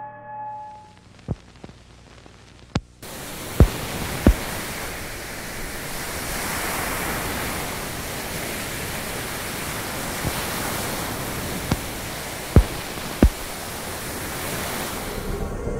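Installation soundtrack: a held music tone fades out, then about three seconds in a steady static hiss comes in suddenly and runs on, with scattered sharp clicks and pops like surface noise on old film.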